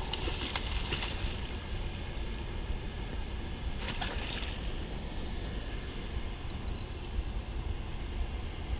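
Steady rush of water from a river spillway, with wind buffeting the microphone. Brief splashes near the start and about four seconds in from a hooked fish thrashing at the surface by the bank.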